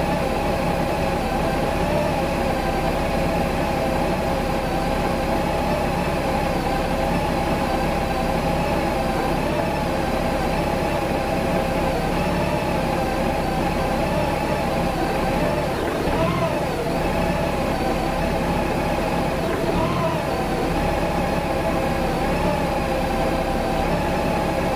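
Honda GL1800 Gold Wing flat-six engine idling warm, with a steady hum and brief wavers in pitch about two-thirds of the way through. This is the rough idle that the owner suspects comes from a fuel pump voltage surge.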